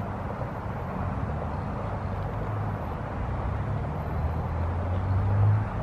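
Steady hum of road traffic, with a vehicle's low engine rumble growing louder near the end.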